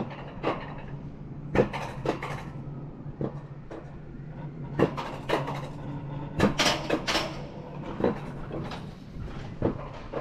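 Mountain coaster car running down its metal tube track, with a steady low rolling hum and irregular sharp clacks about once a second, several close together past the middle.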